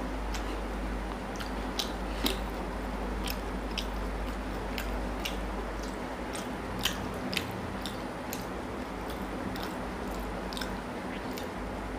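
Close-miked eating sounds of a person chewing chicken curry and rice eaten by hand: many short wet clicks and smacks from the mouth, with fingers squishing the food, over a steady low hum.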